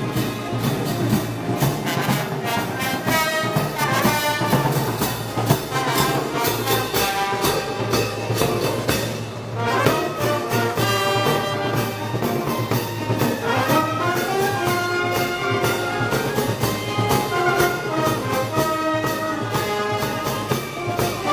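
Brass band music with trumpets and trombones over a steady beat, the festive band music of Moros y Cristianos parades.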